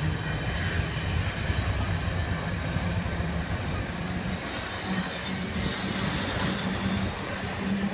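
Passenger train cars rolling past, a steady rumble of wheels on rail, with brief high-pitched squeals about four and a half seconds in and again near the end.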